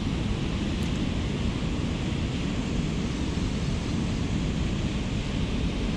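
Steady wind rumble on the microphone, an even noise that does not change.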